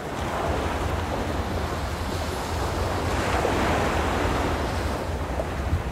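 Wind buffeting the microphone and water rushing past on a moving passenger ferry, over a steady low rumble; the noise swells slightly midway.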